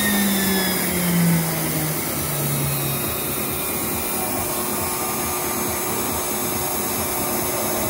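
Steady jet-like rushing roar from inside a steam-injected benchtop charcoal gasifier, fuel combusting inside the device; a low tone slides down in pitch over the first three seconds.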